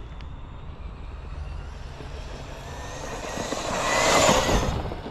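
Traxxas Maxx Slash RC truck with a Hobbywing Max 6 brushless motor, its motor whine and tyre noise building as it drives in close, loudest a little after four seconds in, then falling away.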